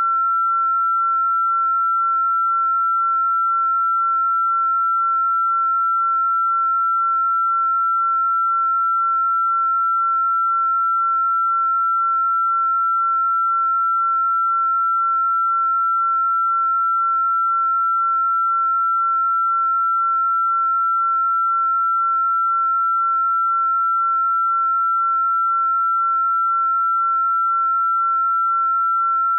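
A single electronically generated pure sine tone, high-pitched and perfectly steady, holding one pitch without a break.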